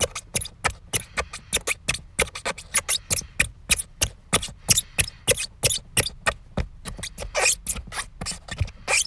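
A rapid, irregular series of short, sharp squeaks, several a second, with no letup.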